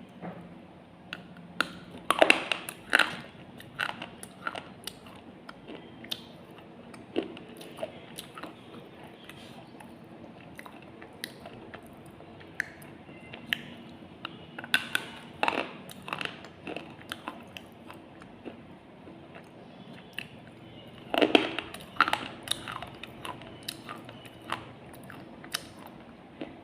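A person biting and chewing slate pencils close to the microphone: crisp crunching snaps with scattered smaller crackles between. The loudest bursts of bites come a couple of seconds in, about midway, and again about three-quarters of the way through.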